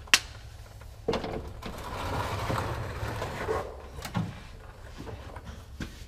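Hands and tools working at a truck engine's oil drain plug: a sharp click at the start, then about two and a half seconds of rough rushing noise, then a couple of knocks, over a steady low hum.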